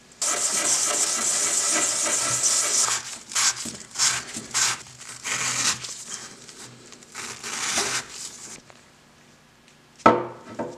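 Steel ball-peen hammer head rubbed on a sheet of sandpaper laid flat on a workbench to dress its face flat: a steady scraping for about three seconds, then a series of shorter rubbing strokes. A single sharp knock near the end.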